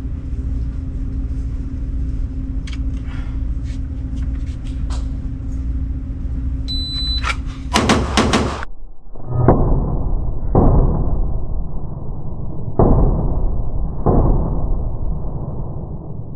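A shot-timer beep, then a rapid five-round string from a 9 mm Glock 19C with a ported barrel and a bolt-on Vantage Point Armory compensator, the shots packed into under a second. After it come the same shots slowed down, as deep, drawn-out, muffled booms about a second apart.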